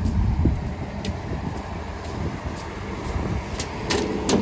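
Engine running with a low, steady rumble, wind on the microphone and a few clicks and knocks; near the end a steady hum joins in.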